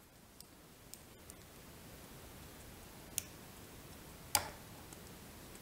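Faint clicks from small fly-tying tools being handled at the vise: a few light ticks and one sharper click a little over four seconds in, as small scissors are brought up to the fly.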